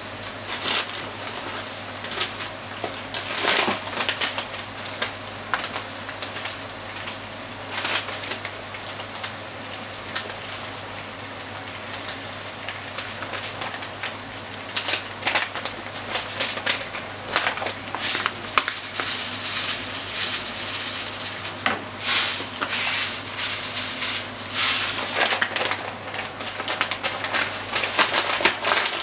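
Diced chicken, onion and corn sizzling in oil in a frying pan, a steady crackle with many small pops and spits.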